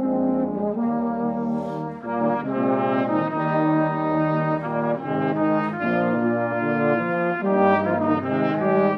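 Brass band music: several brass instruments playing held chords together, the notes changing about once a second.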